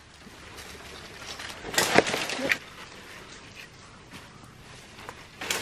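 A partly sawn Gmelina tree trunk cracking and snapping as it is pushed over by hand, loudest about two seconds in. Near the end the tree comes down with a rushing crash of branches and leaves.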